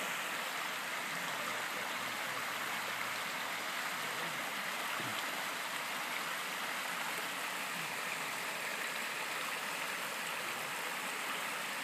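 Shallow mountain stream rushing steadily over a rocky riffle, an even wash of running water.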